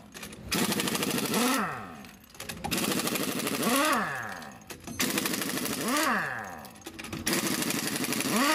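Heavy air impact wrench hammering on truck wheel nuts to loosen them, in four bursts of about two seconds each. In each burst a rapid rattle of blows rises in pitch as the air motor spins up, then winds down and falls away.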